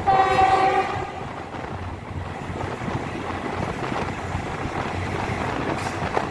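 Diesel train's horn sounds once, for just under a second, then the train runs on with a steady rumble of wheels on the track.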